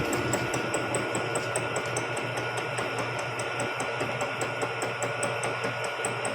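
Vertical milling machine running, a steady hum with a rapid, even ticking of about five a second.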